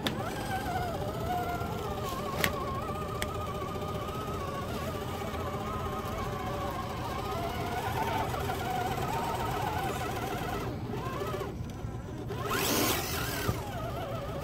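Small electric motor and gearbox of an Axial SCX10 III Jeep Gladiator RC crawler whining as it crawls uphill, the pitch rising and falling with the throttle. A couple of sharp clicks come a few seconds in, and there is a brief louder rush near the end.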